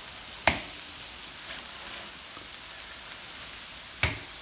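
Dough cakes sizzling against the hot wall of a large iron wok, with steady steam hiss. There are two sharp slaps, one about half a second in and one near the end, as the flatbread dough is pressed onto the hot wok.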